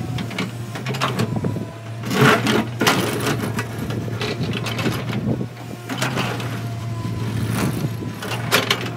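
L&T Komatsu PC200 hydraulic excavator's diesel engine running steadily, with several bouts of rock and soil scraping and clattering as the bucket dumps its load and digs into loose rocky ground.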